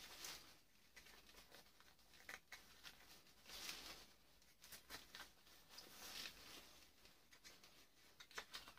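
Faint, irregular scraping and small metallic clicks: a screwdriver picking and prising copper windings out of a burnt electric-motor armature.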